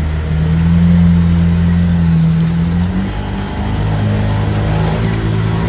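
Motor vehicle engine running steadily over a constant hiss, its note shifting about three seconds in.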